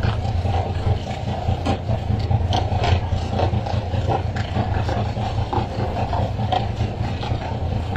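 Fishing boat's engine running steadily, under water splashing and spraying along the hull and scattered sharp knocks and slaps of skipjack tuna being flung aboard onto the deck.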